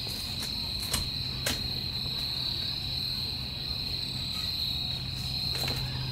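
Crickets trilling in one continuous high, steady note, with a low steady hum underneath from about a second in and a couple of faint clicks.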